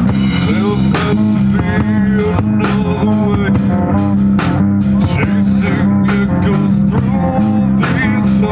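Live heavy metal band playing loud, distorted electric guitars over a heavy bass line, with the drums in the mix.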